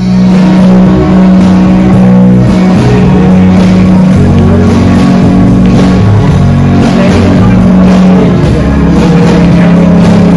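Loud music with a steady drum beat and a held low bass note, starting abruptly.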